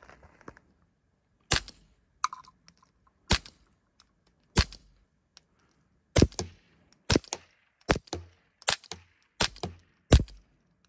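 A Ruger Mark IV 22/45 semi-auto .22 LR pistol fitted with a Nelson Precision Little Spoon silencer, fired about nine times at an uneven pace of roughly one shot a second. The reports are short, sharp cracks with no ringing tail, loaded with subsonic CCI Quiet ammunition.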